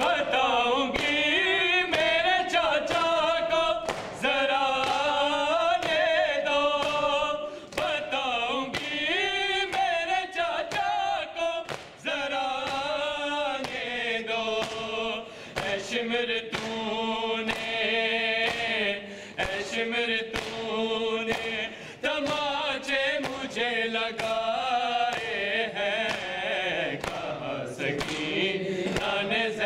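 Male reciters singing a noha, a mourning lament chanted without instruments by a small group of voices, with regular chest-beating (matam) strikes keeping an even beat under the singing.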